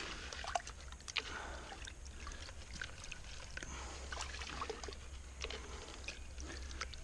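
Wet gravel concentrates being tipped and worked in water in a bucket: water trickling and pouring, with scattered small clicks of stones.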